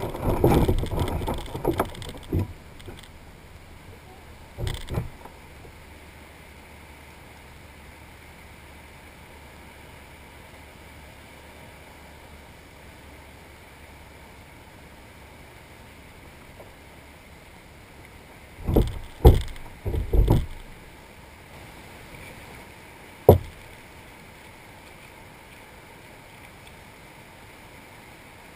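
Knocks, thumps and rattles of gear being handled on a plastic fishing kayak, heard through the hull the camera is mounted on. The handling is loudest and busiest in the first two seconds, with one knock about five seconds in, three heavy thumps about two-thirds of the way through and a single sharp knock soon after, over a low steady background.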